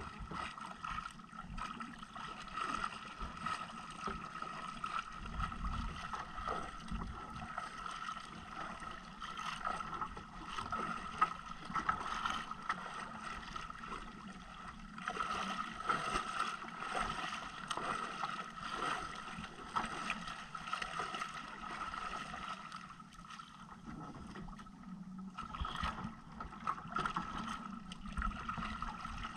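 Water lapping and splashing against the hull of a small boat as hands work over the side, with irregular splashes throughout and a steady hum underneath.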